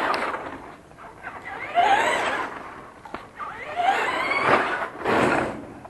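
Electric motor of a hobby radio-controlled truck whining in three bursts, its pitch rising and falling as the throttle is opened and released.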